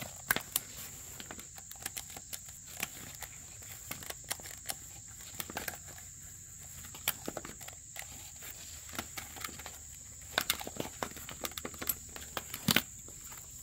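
Irregular clicks and light knocks, a few louder ones in bunches, over a steady high-pitched insect drone.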